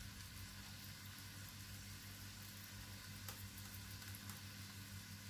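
A chana dal tikki shallow-frying on low heat in a little oil in a non-stick pan: a faint steady sizzle with a few small crackles, over a low steady hum.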